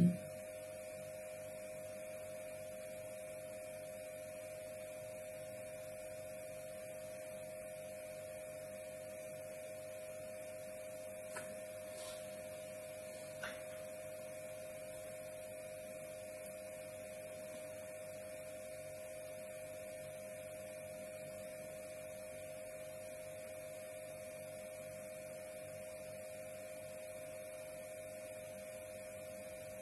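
Steady electrical mains hum, an unchanging low whine. Two faint clicks come a couple of seconds apart midway through.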